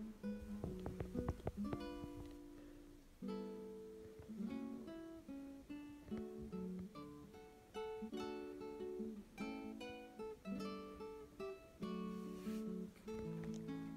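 Background music: an acoustic guitar playing a run of plucked notes and chords.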